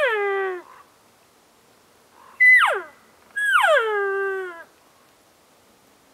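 Elk mews (cow calls): three calls, each sliding steeply down in pitch. The middle one is short and sharp, and the last is longer and levels off low.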